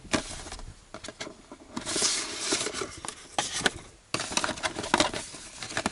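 Handling noise from unpacking a jump starter: the plastic pack being set down and its clamp leads lifted out of a cardboard box. Many small clicks and knocks, with two spells of rustling.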